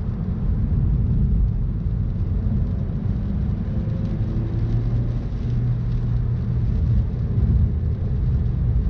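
In-cabin sound of a 2018 Suzuki Swift Sport on the move: its 1.4-litre turbocharged four-cylinder engine drones under load over a steady low road rumble. About halfway through, the engine note holds one pitch for a few seconds.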